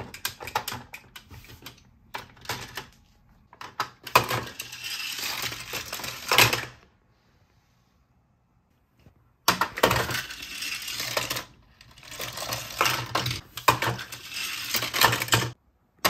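A die-cast Hot Wheels car rattles along the plastic track of a Hot Wheels City Pizza Slam Cobra Attack set and clatters against its plastic pieces, with sharp plastic clicks and knocks from handling the launcher. The clatter comes in several runs, with a silent gap in the middle.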